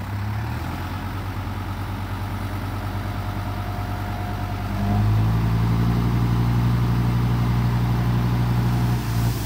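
Hino dump truck's J07C diesel engine running, stepping up to a higher, steady speed about five seconds in as the hydraulic hoist lifts the loaded tipper bed.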